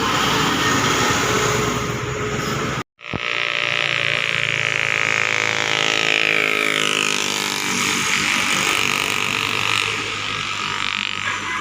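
Motor vehicle engines running in traffic. The sound cuts out for an instant about three seconds in, then a pitched engine tone with many overtones slowly falls in pitch, as from a passing vehicle.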